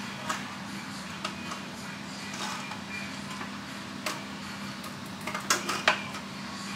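Glass canning jars clinking against one another and the pressure canner as they are set into its second layer: a few light knocks, then a quick cluster of louder clinks near the end, over a steady low hum.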